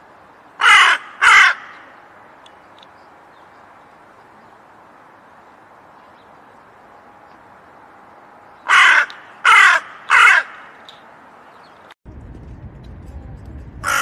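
Hooded crow cawing: two harsh caws about a second in, then three more in quick succession around nine to ten seconds in. Near the end a louder low rumble comes up behind, and another caw begins.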